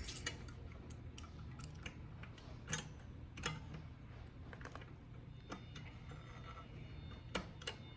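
Faint, irregular small clicks and taps from a disc-brake caliper housing being handled and fitted back over the brake disc of a trike wheel, with a few sharper clicks, over a steady low hum.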